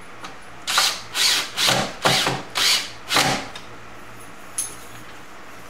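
Cordless drill/driver driving a wood screw into the side of a wooden cabinet in six short bursts of the trigger, then one brief blip later on.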